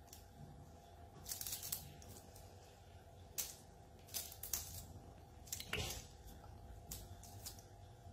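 Light rustling and crinkly scratches as kittens bat at a feather wand toy on a fur rug: half a dozen short bursts over a faint steady hum.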